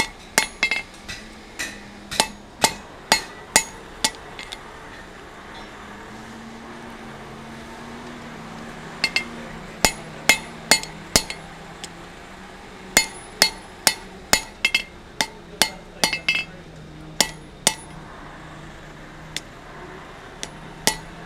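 Blacksmith's hand hammer striking a red-hot mild steel bar on an anvil: light cleanup blows in runs of several strikes, each with a short metallic ring. There is a pause of several seconds without blows about a quarter of the way in, after which the strikes resume.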